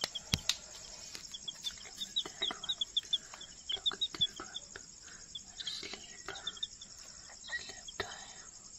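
Baby chicks peeping softly in a quick run of short, high peeps, with a few more a little later, over a steady high chirring of crickets. A few light clicks.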